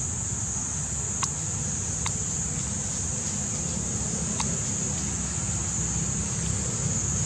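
Outdoor ambience: wind rumbling on the microphone under a steady high-pitched hiss, with three short clicks in the first half.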